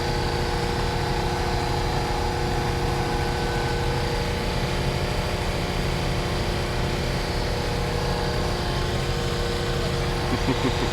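Machinery pulling steel strands into a bridge duct, running with a steady engine hum and several constant tones that do not change.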